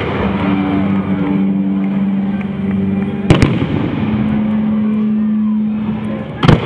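Aerial firework shells bursting overhead with sharp bangs, one about three seconds in and one near the end, over a steady low drone.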